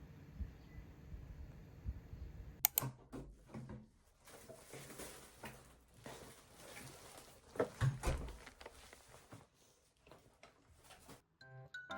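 Handling noises: a sharp click, then scattered clicks, knocks and bursts of rustling.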